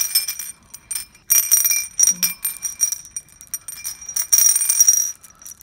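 Glass pearl beads clicking and rolling around a glazed ceramic dish, with bright ringing clinks. They come in three spells: at the start, about a second in, and again near the end.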